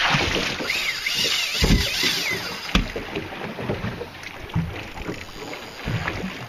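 Wind and sea noise aboard a small boat, with low knocks and a sharp click just under three seconds in while a spinning rod is worked against a hooked fish. A few high, wavering chirps come about a second in.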